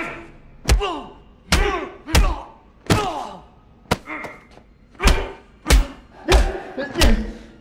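A fight-scene beating: about nine heavy punches land one after another, each a dull thud followed by a short grunt that falls in pitch.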